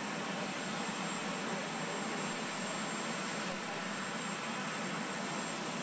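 Jet aircraft engines running, a steady rushing noise.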